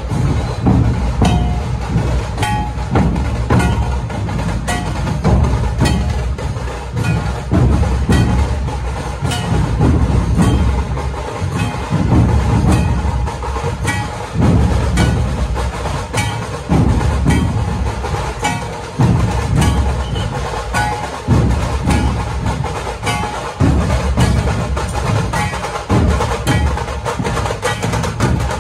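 A Maharashtrian dhol-tasha troupe's large barrel drums (dhol) beaten together in a driving rhythm. Heavy low strokes come in repeating phrases, with sharp, evenly spaced cracking strokes over them.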